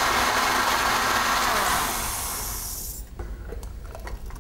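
Countertop blender running as it purées spinach soup, switched off about two seconds in and winding down. A few light knocks follow.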